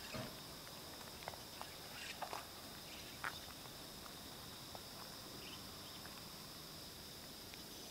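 Faint outdoor ambience: a steady high insect chorus, with a few soft, irregular taps in the first few seconds.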